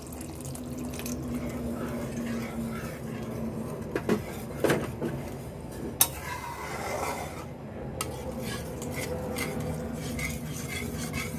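Spatula scraping and knocking against a pan while stirring water into a thick curry gravy, with a few sharp clinks, the clearest about four, six and eight seconds in.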